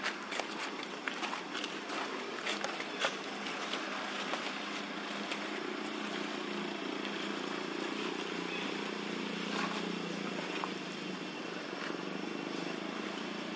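Dry leaf litter crackling and rustling as macaques shift and move over it, the crackles thickest in the first half. Beneath it is a steady low hum.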